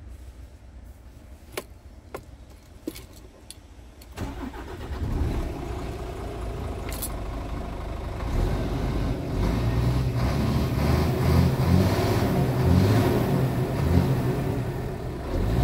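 Scania R tractor unit's diesel engine heard from the cab: a faint idle with a few light clicks, then revved from about four seconds in, the engine note rising and growing louder as revs climb to about 1,700 rpm near the end.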